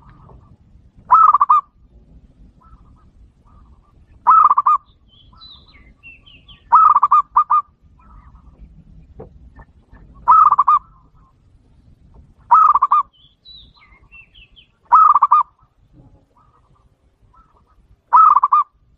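Zebra dove (perkutut) cooing: a loud, short, pulsed coo repeated about every two to three seconds, with faint chirps of small birds between calls.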